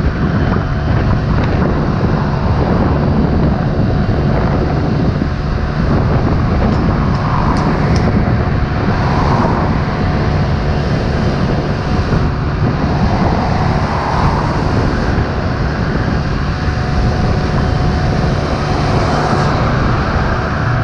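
Steady wind rushing over the microphone of a scooter riding at road speed, with the scooter's small engine running steadily underneath.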